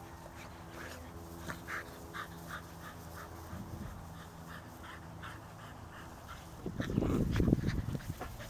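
Puli dogs giving short, high whimpers, a few each second, over a steady low hum. A loud low rumbling noise comes in near the end for about a second and a half.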